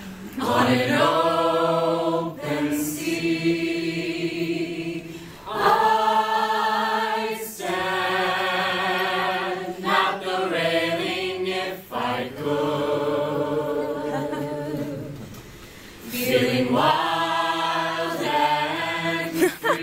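A small mixed choir of men and women singing a cappella in harmony. Long held chords with vibrato come in phrases of a few seconds each, with short breaks between them.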